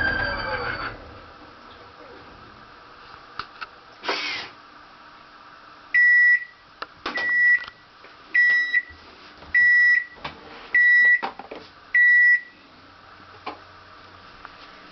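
Panasonic fully automatic washing machine: the squealing spin noise, caused by a faulty clutch, dies away in the first second with falling pitch as the drum slows. About four seconds in comes a short clunk, then six loud, evenly spaced beeps, roughly one every 1.2 seconds, as the machine signals the end of the cycle.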